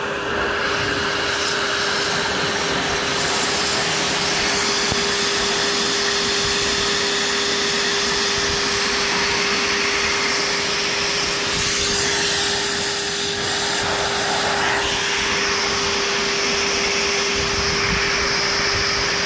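Bauer shop vac running steadily on its blower (exhaust) setting with a constant motor whine, forcing air through the hot tub's plumbing to blow leftover water out of the jets so it can't freeze over winter.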